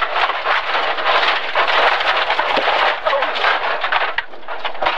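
Dense, crackling noise inside a BMW E30 325i rally car's cabin at speed on a bumpy stage, with no clear engine note standing out.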